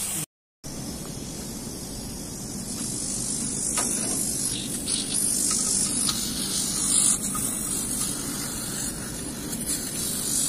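Steady hiss of gas escaping under pressure, strongest in the high treble, over a low hum, with a few faint clicks.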